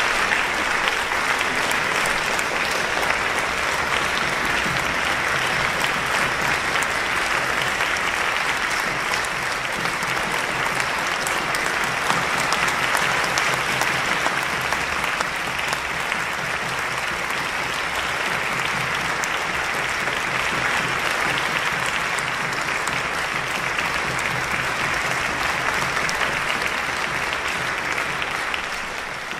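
Audience applauding steadily, beginning to fade near the end.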